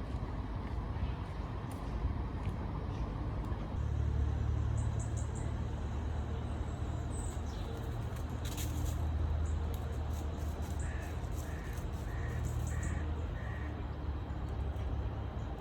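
Birds chirping and calling over a steady low rumble, with a run of about five short, evenly spaced calls a little past the middle. The rumble gets louder about four seconds in.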